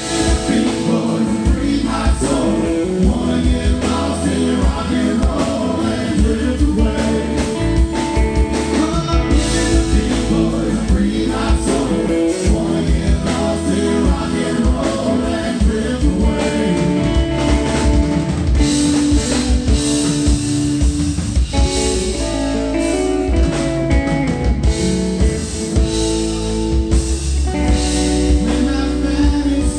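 Live blues band playing amplified: electric guitars and bass guitar, with a singer.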